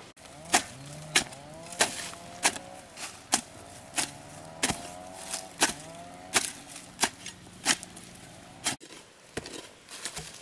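A hoe chopping into soft garden soil, digging a hole, in a steady rhythm of about three strikes every two seconds.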